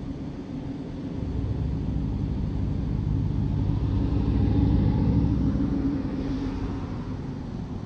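A motor vehicle driving past: a low rumble that builds, peaks about halfway through and fades away.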